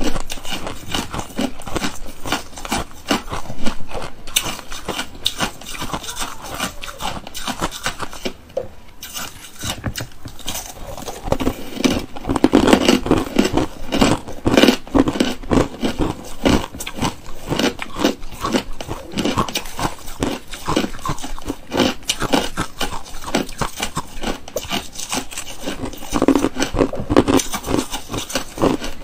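Close-miked biting and chewing of hard frozen ice chunks: dense, rapid crunching and crackling, with a brief lull about nine seconds in.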